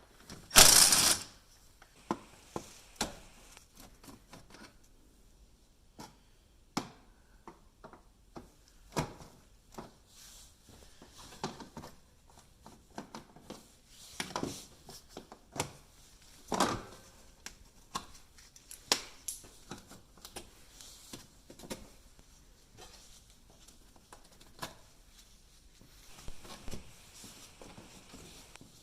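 Scattered clicks and knocks of tools against plastic trim and fasteners as the screws and plastic clips holding a car's front bumper cover are taken out, with a louder rasping noise lasting about a second near the start.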